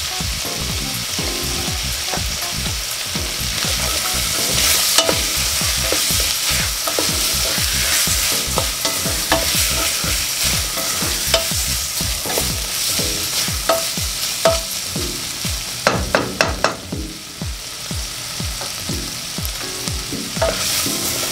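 Mixed vegetables sizzling as they fry in a stainless steel pot, stirred with a wooden spatula that scrapes through them with many small clicks. A quick run of sharp knocks comes late on.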